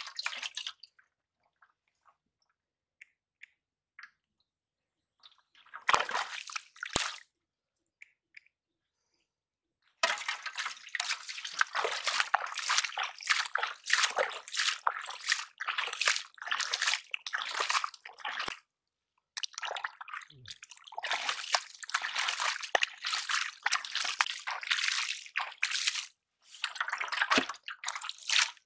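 Muddy water sloshing and splashing in quick, irregular bursts, with some squelching of mud, as a hand gropes in a flooded hole in the ground for catfish. The first ten seconds are nearly quiet apart from one short splash; after that the splashing runs almost without a break.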